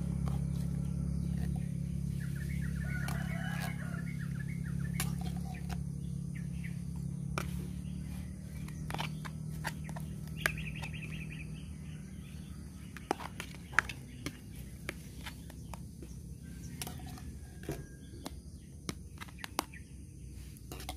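A metal spoon scraping and tapping against a tin can and a plastic bowl as wet cat food is spooned onto rice, in scattered sharp clicks. A chicken clucks briefly twice in the background, and a low steady hum fades out about halfway through.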